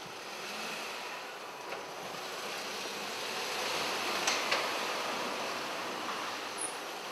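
Police patrol car driving slowly into a parking garage and past. Its engine and tyre noise build to a peak about four seconds in and then ease off, with a couple of sharp clicks at the loudest point.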